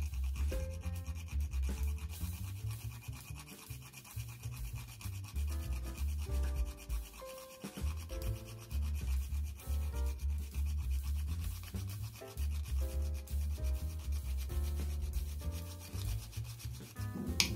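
Whole nutmeg rasped on a small handheld metal grater: repeated dry scraping strokes, over background music.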